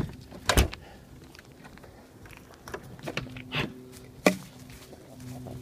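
A loud thump about half a second in, then scattered knocks and footstep-like handling noises as the person moves outdoors with a hand-held phone, with a sharp click near the end. A steady low hum comes in about halfway and keeps going.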